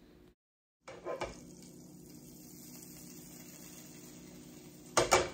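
Skillet handled over an electric hot plate: a light knock about a second in and a louder clank near the end, over a faint steady hum.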